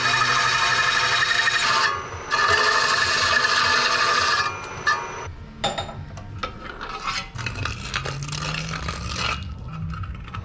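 End mill on a vertical milling machine cutting aluminium plate: a loud, chattering screech that breaks off briefly about two seconds in and stops about four and a half seconds in. After that, quieter clatter and knocks as the plate is handled and reset in the vise.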